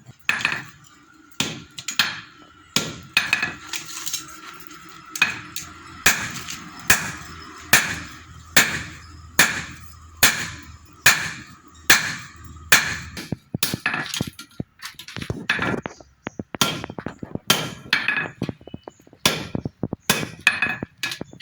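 Blacksmith's hammer striking iron on the anvil, sharp ringing blows a little over once a second, turning to quicker, more uneven strikes in the second half.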